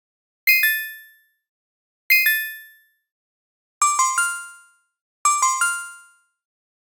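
Four short button-click sound effects, each a quick run of three or four bright, bell-like dings that fade within about a second, with silence between them. The first two are higher-pitched than the last two.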